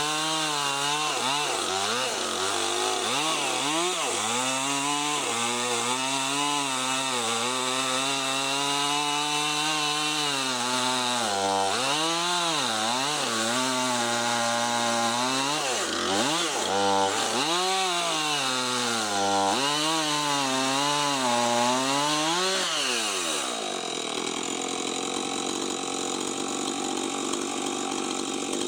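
Husqvarna 450 two-stroke chainsaw with a 20-inch bar ripping lengthwise through a big black oak log, the engine pitch dipping and recovering over and over as it loads up in the cut. About 23 seconds in, the engine note falls away.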